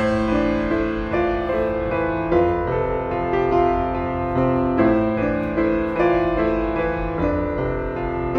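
Background piano music: a slow run of notes with a steady pulse.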